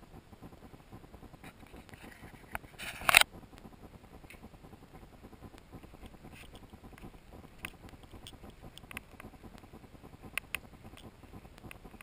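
Handling noise and light footsteps from a handheld camera being walked out through patio doors onto a terrace, with scattered small clicks and one brief, loud rustling scrape about three seconds in.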